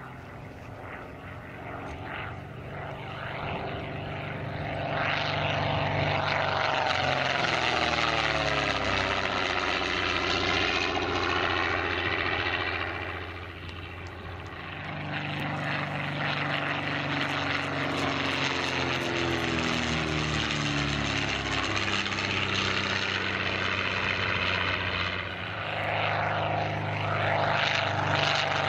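Percival Mew Gull racer's de Havilland Gipsy Six engine and propeller running at high power through fast fly-bys. The engine note swells and drops in pitch as the aircraft passes, twice, then climbs again near the end.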